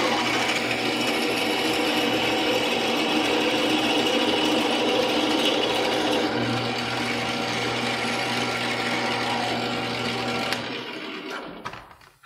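Metal lathe running at low speed while a twist drill feeds into the spinning workpiece: a steady motor-and-gear drone. About ten and a half seconds in, the lathe is switched off and winds down to a stop.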